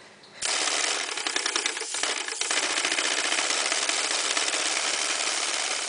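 Homemade brass wobbler engine running on compressed air, starting suddenly about half a second in: a loud, fast, even hiss and clatter of air exhausting with each stroke of the oscillating cylinder.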